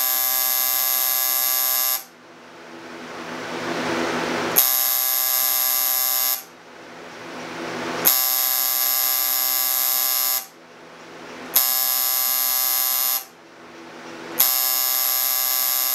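Coil tattoo machine buzzing in five bursts of about two seconds, switched on and off repeatedly by a motion-sensing switch. Each burst starts abruptly with a sharp click.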